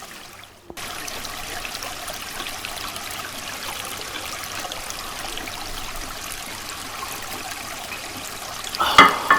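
Creek water running steadily, starting abruptly about a second in. A brief louder sound near the end.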